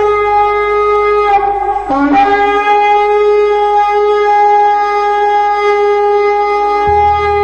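Shofar blowing one long sustained blast. About a second and a half in, the note wavers and slides down, then climbs back and holds steady again.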